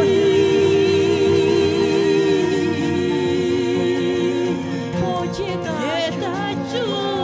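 Women's voices singing an Albanian folk song with violin, oud and frame drum accompaniment. The singer holds one long wavering note for about two and a half seconds, then a lower one, then moves into shorter phrases.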